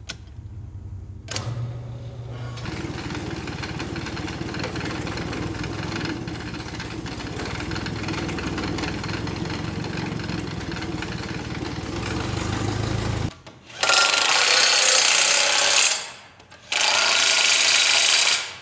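A machine runs steadily for about ten seconds. Then a cordless drill runs at full speed in two loud bursts of about two seconds each, bolting the engine block to an engine stand.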